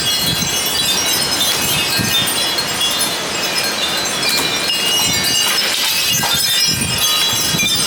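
Strong gusty wind with a set of wind chimes jangling continuously, many short ringing notes overlapping, and gusts rumbling on the microphone now and then.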